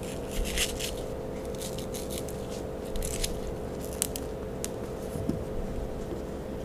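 Kitchen knife cutting an unripe green mango into small pieces on a wooden cutting board: a few scattered cuts and taps of the blade, over a steady faint hum.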